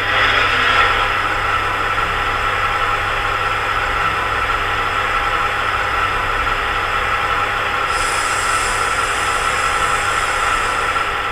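Sound decoder of a PIKO H0 model of the DB class 364 diesel shunting locomotive playing its diesel engine sound through the model's loudspeaker, idling steadily. A faint high hiss joins about eight seconds in.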